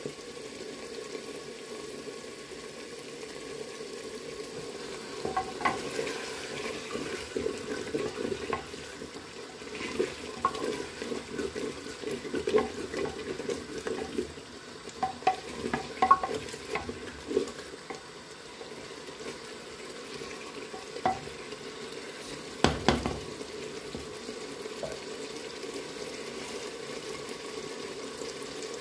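Chicken and masala frying in a clay handi with a steady sizzle, stirred with a wooden spoon that knocks and scrapes against the pot, many times between about 5 and 17 seconds in and once hard at about 23 seconds. The masala is being fried until the oil separates.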